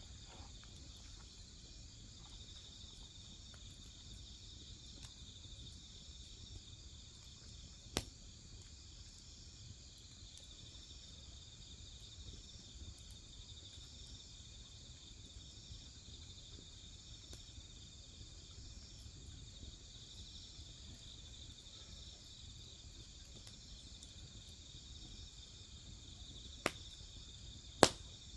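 Crickets and other grass insects chirping in a steady, high-pitched, pulsing chorus. Sharp pops from burning firewood cut through it: one about eight seconds in and two near the end, the last the loudest.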